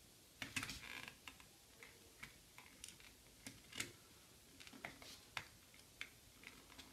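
Faint, irregular small clicks and taps from hands handling a Nintendo NES controller's plastic shell and cable.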